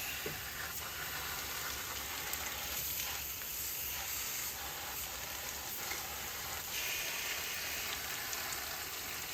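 Water spraying from a hose through a small-hole wand attachment onto the inside of an outdoor HVAC unit's coil, a steady hiss and spatter: the coil being rinsed from the inside out.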